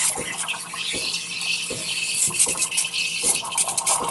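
Espresso machine steam wand hissing in a stainless steel jug of milk, with irregular sputtering pops as the milk is steamed.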